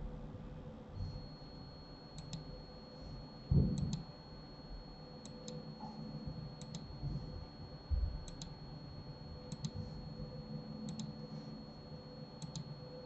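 Computer mouse clicking in quick pairs, about one pair every second and a half, with two dull low thumps in between, the louder a few seconds in. A faint steady high whine runs underneath.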